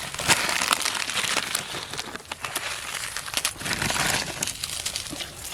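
Irregular crinkling and crackling as dry bait ingredients (biscuits, vermicelli) and their plastic packets are handled and crushed by hand.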